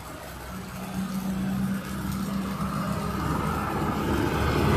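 A motor vehicle approaching along a rain-soaked, flooded street, its engine hum starting about half a second in and growing steadily louder, with a rising hiss of water.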